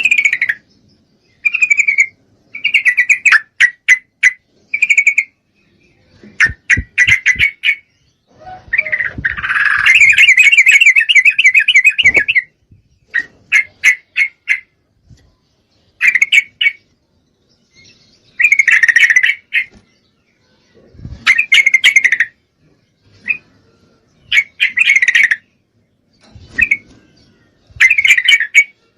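Yellow-vented bulbul (trucukan) calling: short bursts of chattering notes repeated every second or two, with a longer run of rapid notes lasting about three seconds. These are a female's calls to a male, in breeding condition.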